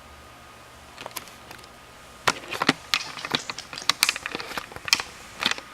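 Close handling noise: a few light clicks, then from about two seconds in a quick run of sharp clicks and knocks, as of hard plastic being picked up and set down.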